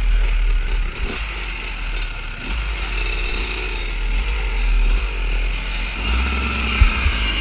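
Dirt bike engine running under the rider, its pitch shifting a little around the middle, with wind buffeting the on-board microphone.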